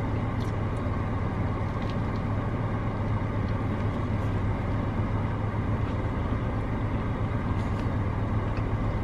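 Steady low hum of a parked car's engine idling, heard from inside the cabin, with a few faint ticks.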